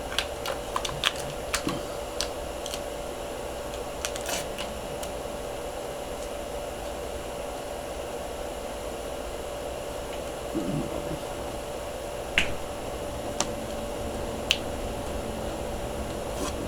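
Small sharp clicks and taps of a plastic CD jewel case and its paper inserts being handled, a cluster in the first few seconds and a few single ones later, over a steady hum.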